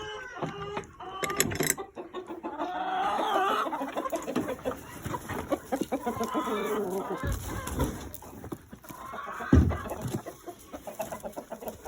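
Backyard chickens clucking as they are let out of their coop in the morning. There are a few dull thumps, the loudest about nine and a half seconds in.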